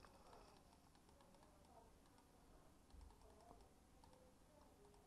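Near silence with faint, scattered clicks of a computer mouse and keyboard.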